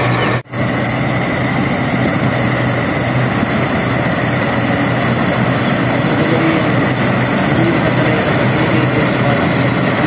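Combine harvester running steadily while cutting ripe rice: the engine and threshing machinery make a loud, even drone with a steady high whine. The sound drops out for an instant about half a second in.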